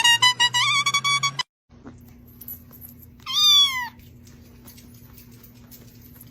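A domestic cat meows once, about three seconds in: a single call that rises and then falls, over a steady low hum. Before it, a short stretch of music breaks off about a second and a half in.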